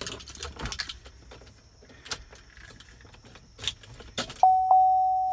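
A bunch of keys jangling and clicking as the key is found. About four seconds in, a 2015 Chevy Silverado's dashboard warning chime starts dinging, a single bell-like tone struck again and again, about once a second.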